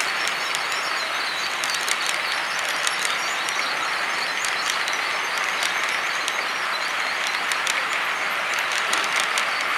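Model train rolling along the layout's track: a steady rushing wheel-on-rail noise with many light clicks scattered through it.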